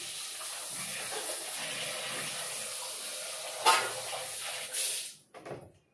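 Kitchen tap running water over raw chicken in a steel bowl as it is washed. The flow is steady, with a brief louder burst about three and a half seconds in, and the tap is shut off about five seconds in.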